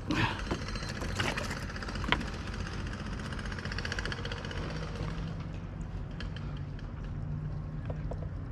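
Light clicks and knocks of fishing gear being handled on a kayak, with a stretch of fast fine ticking near the middle, over a steady low hum.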